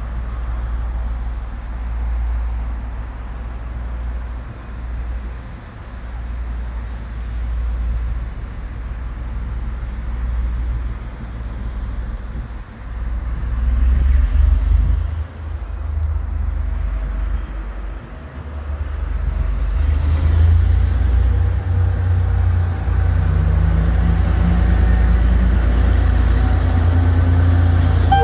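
Two KiwiRail DCP-class diesel-electric locomotives with EMD two-stroke diesel engines running as they approach hauling a container train: a low rumble that grows louder. Its pitch rises over the last few seconds.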